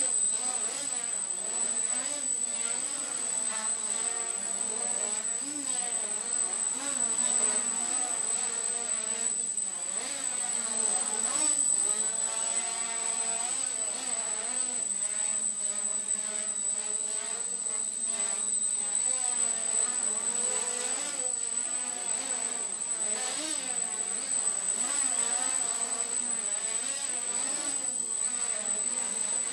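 Micro quadcopter's four small brushless motors (1811 2900kv) spinning 5030 propellers, a buzzing whine whose pitch keeps rising and falling as the throttle changes in flight. A steady high-pitched tone sits underneath throughout.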